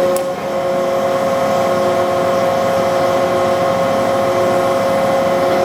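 Toolmex (Tarnow TUJ-50M) gearhead lathe running under power, its 15 HP spindle drive and headstock gears making a steady mechanical whine with a constant tone.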